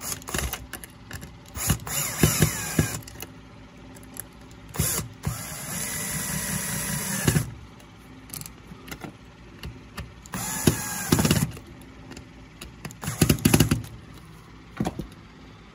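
Cordless drill-driver running in about five short runs, driving small screws into the cord clamp on the vacuum's terminal block. The longest run lasts about a second and a half, a little before the middle.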